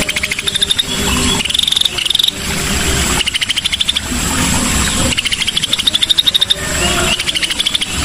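Cucak sisik (scaly-breasted bulbul) song: a series of fast, rattling trills, several rising in pitch.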